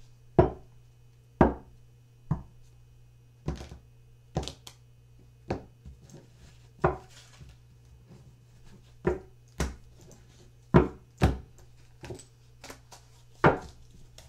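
Tarot cards being laid down one by one on a table: about a dozen sharp taps and slaps, irregularly spaced about a second apart.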